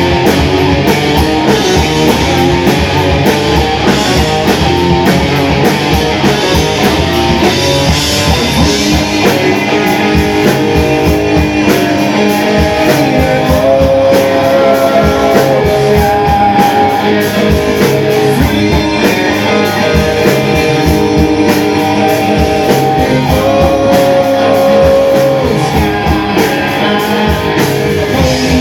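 Rock band playing an instrumental passage: guitar and drum kit with a steady beat, with long held notes over the top and no singing.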